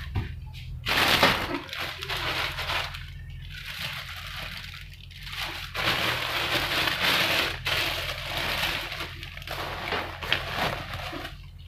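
Rustling and crinkling of a nylon duffel bag and a plastic carrier bag being handled while clothes are packed into the bag, in irregular bursts.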